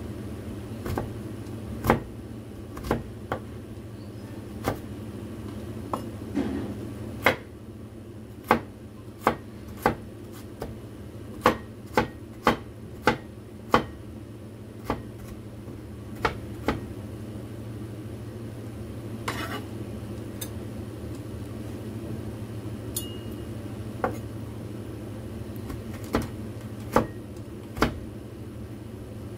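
Chinese cleaver chopping on a cutting board: single sharp chops at irregular intervals, often one every half second or so, with a lull of several seconds past the middle.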